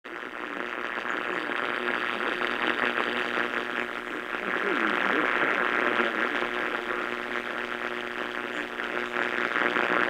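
AM radio static and hiss from a weather alert radio's speaker tuned to 1510 kHz, with a steady buzz of several low tones under it.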